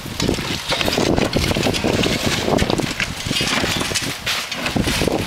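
Roof tear-off: irregular scraping and clatter of roofing shovels prying old asphalt shingles off the deck.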